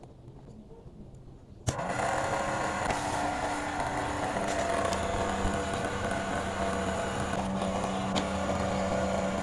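Small DC hobby motor spinning a propeller fan, switched on with a click about two seconds in, then running steadily with a hum.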